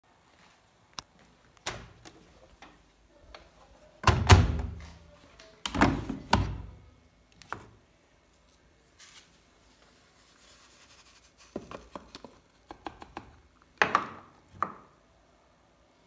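Handling noises from a Samsung front-loading washing machine's door and detergent drawer. Two heavy thunks come about four and six seconds in, then a run of lighter clicks and knocks and a last thunk near the end.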